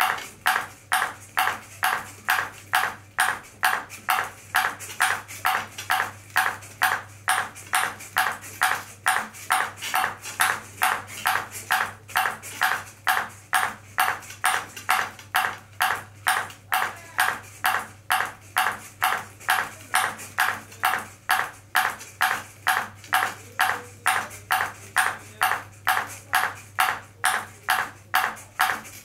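Orange ping pong ball bouncing again and again on a robot's clear plastic paddle, a sharp click each time, in an even rhythm of a little under two bounces a second.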